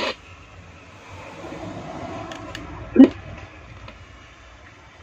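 Car stereo's FM static hiss cuts off abruptly as a front-panel button is pressed. A faint low hum and a couple of light clicks follow, then one short loud blip about three seconds in.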